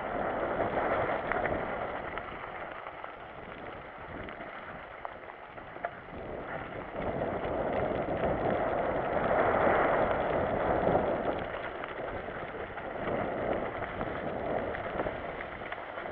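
Mountain bike riding downhill on a wet, rocky trail: tyres rolling over gravel and mud, with the bike rattling and an occasional knock. The noise rises and falls, swelling about seven seconds in.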